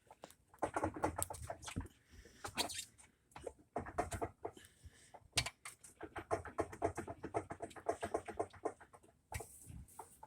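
LG WM0642HW front-load washer drum turning on low spin, with a rapid, irregular rattling and knocking, which the technician takes for a loose inner drum.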